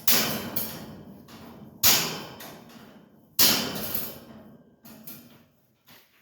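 Three loud bangs about a second and a half apart, each dying away slowly, followed by a few fainter knocks near the end.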